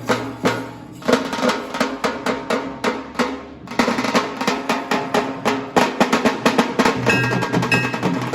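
Instrumental dhun played on drums: fast, dense drumming with snare-like rolls, over a few held, ringing bell-like notes. The drumming thins briefly about three and a half seconds in, then picks up again.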